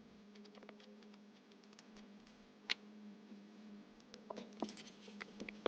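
Light clicks and taps of small journaling supplies being handled on a desk. There is one sharp click about two and a half seconds in and a quick run of taps near the end, over a faint steady hum.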